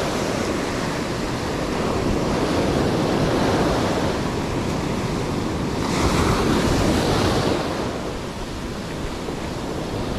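Rough sea surf breaking and washing up the beach, with wind buffeting the microphone. A bigger wave breaks louder about six seconds in.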